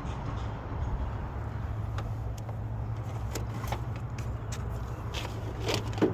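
Footsteps, several short sharp steps from about two seconds in, over a steady low rumble.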